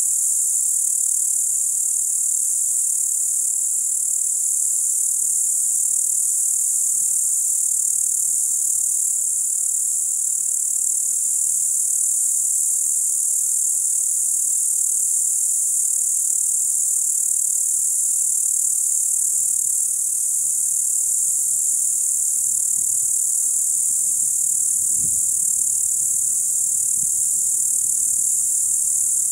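Crickets singing in a steady, unbroken high-pitched chorus.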